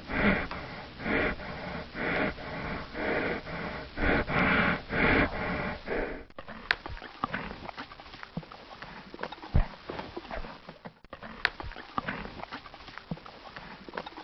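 A horse's loud, rhythmic breathing puffs and snorts, about one a second. About six seconds in they give way to sparse, crisp crunches of a horse chewing a carrot.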